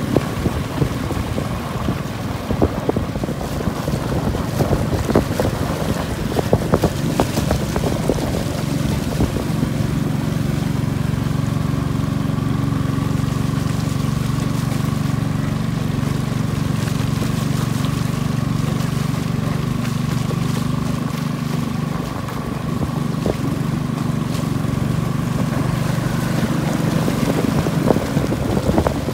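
Long-tail boat engine running steadily under way, with water rushing past the hull and wind on the microphone.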